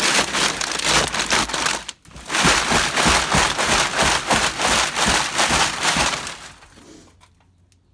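A bucketful of flattened scrap cans being poured into a 55-gallon drum: a dense metallic clatter and rattle. It stops briefly about two seconds in, then starts again and dies away near the end.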